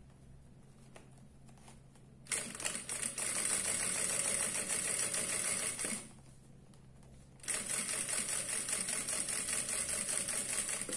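Jack industrial sewing machine stitching in two runs, starting about two seconds in and pausing for about a second and a half near the middle. It is topstitching through the layers of a laptop case.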